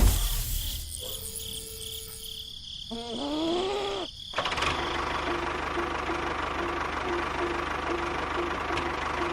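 A small motor running with a steady hum and a tone pulsing about twice a second, after a thump at the start and some rising and falling tones, in abruptly cut segments.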